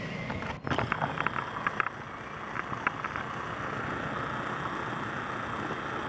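Steady distant helicopter drone, with a run of sharp clicks and rustles about a second in from the camera brushing through leaves.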